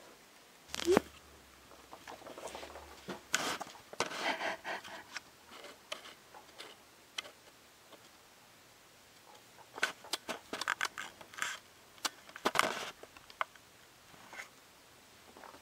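Guinea pigs scurrying and popcorning, the happy jumps of contented guinea pigs: irregular pattering and scraping of small feet, with scattered sharp clicks and knocks. The loudest knocks come about a second in and around twelve and a half seconds.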